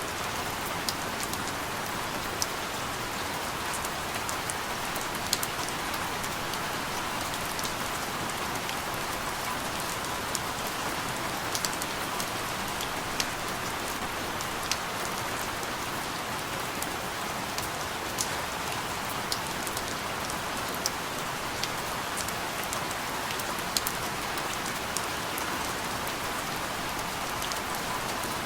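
Steady rain falling on a surface, a continuous even hiss with scattered sharp individual drop splashes.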